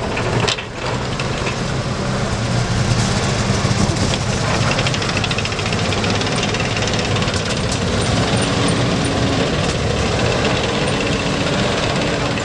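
Ford Maultier half-track's V8 petrol engine running as it drives on its tracks, the steel track links clattering rhythmically. A clunk about half a second in as it comes off the ramps, and the engine note rises near the end as it pulls away.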